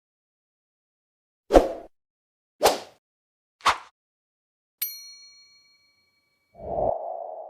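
Transition sound effects played in turn: three quick swish sweeps about a second apart, then a bright metallic ping that rings for about a second, then a low thud with a sustained ringing tone near the end.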